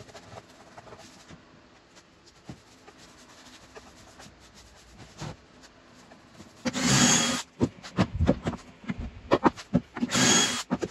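Faint rubbing of a paintbrush on timber, then a DeWalt cordless drill boring into pallet wood in two short runs about three seconds apart, with a run of knocks between them.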